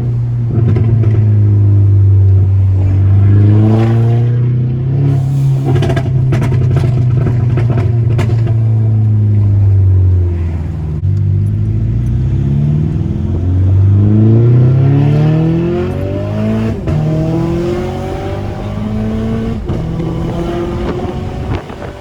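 Mk6 Volkswagen GTI's turbocharged 2.0-litre four-cylinder accelerating hard, its note climbing and stepping down as the automatic gearbox shifts up, with the revs falling away about ten seconds in before climbing again. Sharp exhaust crackles and pops from the tune break in, mostly in the first half.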